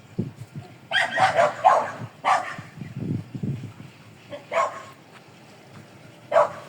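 Short, sharp animal calls: a quick run of several about a second in, one more just after, then single calls further on.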